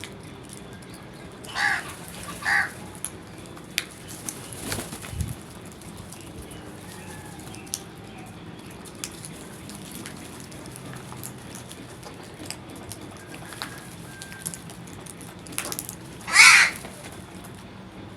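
Crows cawing: two short caws about two seconds in and a louder one near the end, with scattered light clicks and rustles between.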